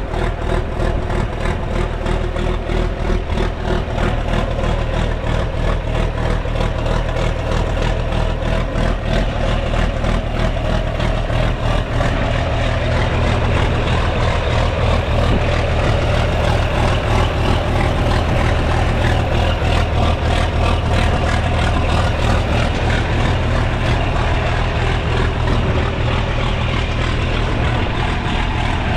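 John Deere 4520's turbocharged six-cylinder diesel running after a cold start, with a heavy low engine note. About twelve seconds in it gets louder and steadier.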